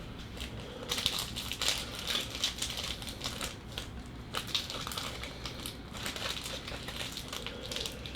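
Crinkling of a trading card pack's wrapper as it is handled and pulled open, an uneven run of small crackles and rustles. The pack is stubborn to open.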